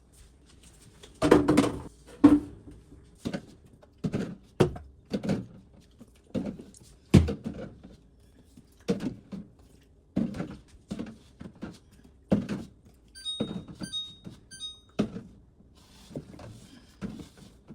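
Food items and containers being set down on refrigerator shelves: a string of separate knocks and thunks, about one a second, with a few light high clinks about three-quarters of the way through.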